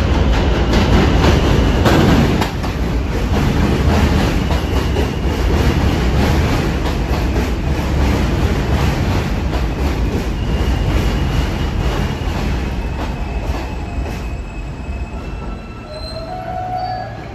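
New York City Subway F train pulling into the station and braking: a loud rumble with wheels clacking over rail joints and a thin wheel squeal. The noise fades as the train slows, and short brake squeals come as it stops near the end.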